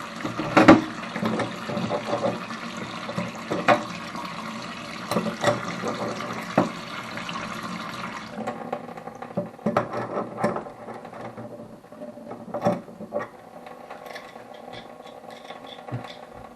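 Hot water running hard from a tap while its inner part is being swapped, with sharp metal clicks and knocks of the tap parts and tools. About halfway through the rush of water stops abruptly, leaving only scattered clicks and handling knocks.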